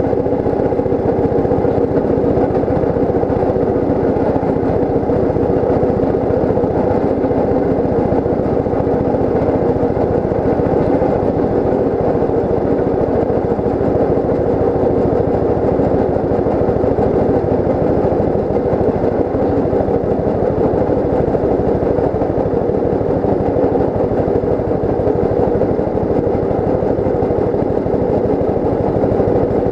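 Rail speeder's small engine running steadily as it travels down the track, a constant drone that holds the same pitch throughout.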